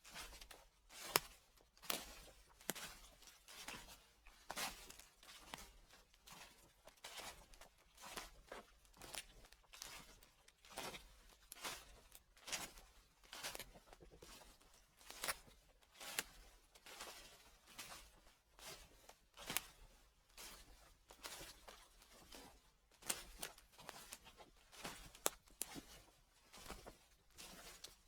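Footsteps crunching through dry fallen leaves at a slow, steady walking pace, each step a brief crackling rustle.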